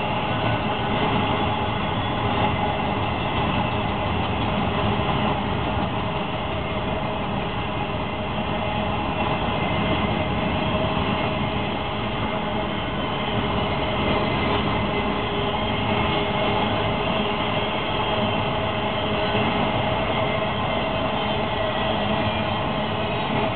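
Intermodal freight train cars rolling past, their steel wheels on the rails making a steady, unbroken rumble with a few faint steady tones riding over it.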